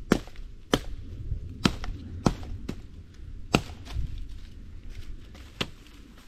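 A blade chopping into wood: about seven sharp strikes at uneven intervals, the first the loudest.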